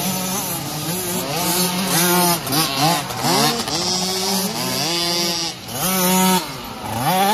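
Kids' 50cc two-stroke motocross bikes racing, their engines revving up and down so the pitch rises, holds and drops again and again.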